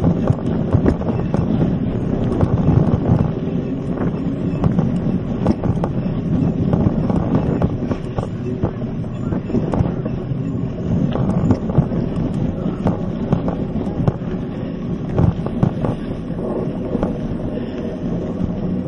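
Mountain bike riding over a rough dirt trail, heard from a camera on the handlebars: a steady rumble of tyres and rattling of the bike, with many small knocks as it bumps over the ground, and wind on the microphone.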